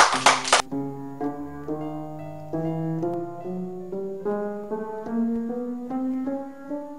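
Rhythmic handclaps stop about half a second in. Then a piano is played: a simple, slow melody over low accompanying notes.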